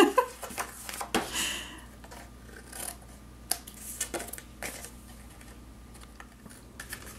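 Cardstock card being handled and turned over, then several short snips and clicks of small paper scissors trimming an edge of the card.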